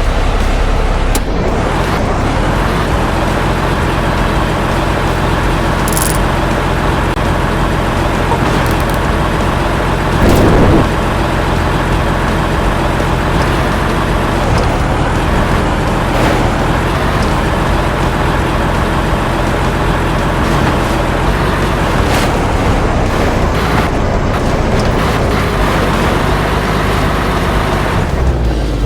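A vehicle engine running steadily, with a brief louder surge about ten seconds in.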